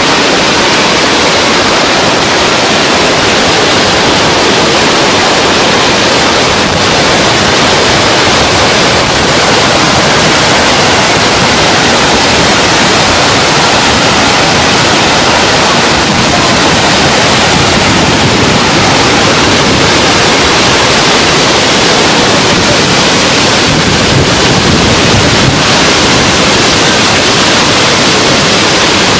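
Floodwater pouring over a dam spillway: a loud, steady rushing of water that does not let up.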